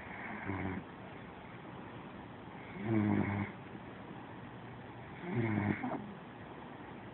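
Snoring: three snores about two and a half seconds apart, each a low buzzing breath lasting under a second, the first one weaker.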